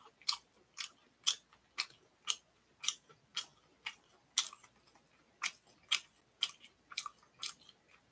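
A man chewing boneless fried chicken close to the microphone: a regular smacking chew about twice a second.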